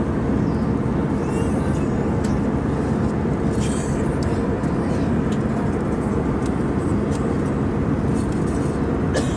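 Steady airliner cabin noise in flight: the even, low rumble of the engines and the airflow, heard from inside the passenger cabin.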